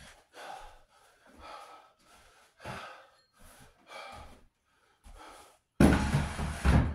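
A man breathing hard in quick, short gasps after a set of decline push-ups. Near the end comes a louder thump and scrape as a chair is set down on the floor.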